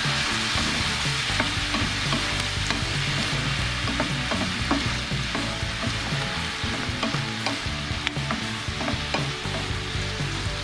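Diced potatoes, sweet potato and shiitake mushrooms sizzling in a frying pan in oil, vinegar and freshly added soy sauce while a wooden spatula stirs them. A steady sizzle with scattered light clicks and scrapes of the spatula against the pan.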